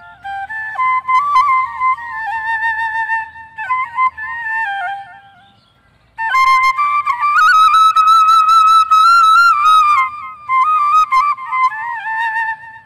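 Bamboo transverse flute (bansuri) playing the slow, ornamented melody of a Bhawaiya folk song. It pauses briefly about five and a half seconds in, then comes back louder on a higher phrase with a long held note before stepping back down.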